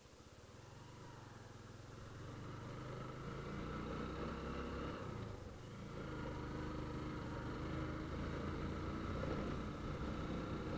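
Motorcycle engine pulling away and picking up speed, its note rising over the first few seconds, dropping briefly about halfway through, then running steadily.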